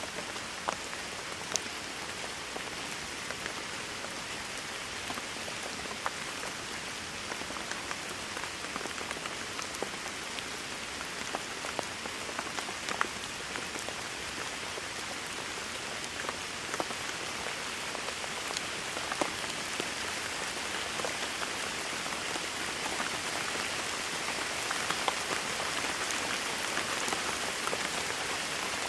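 Steady rain falling, an even hiss with many scattered sharp drop ticks, growing a little louder over the second half.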